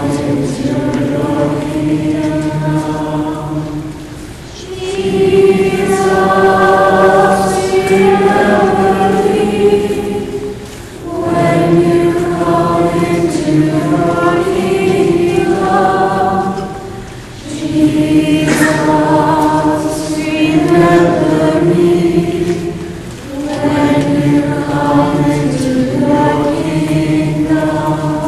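A group of voices singing a hymn in long held phrases, with a short break between phrases about every five to six seconds.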